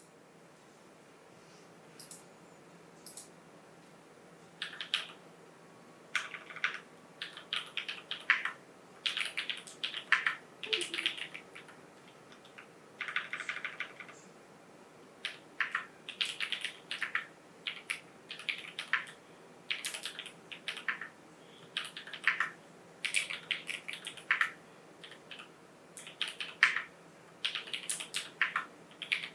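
Orion87 mechanical keyboard being typed on with no foam in the case: sharp key clicks in irregular bursts of quick keystrokes, faint at first and steady runs from about five seconds in.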